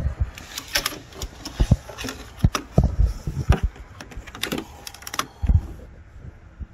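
Hands handling a wiring harness and its split plastic loom in an engine bay: an irregular run of sharp clicks, taps and dull thumps with short gaps.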